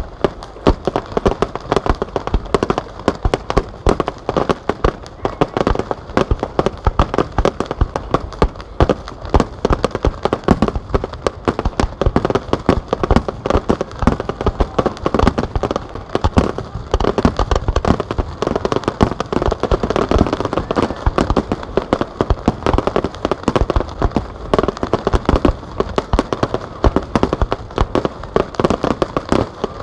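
Fireworks: many aerial shells bursting in quick succession, a dense, unbroken barrage of bangs and crackle.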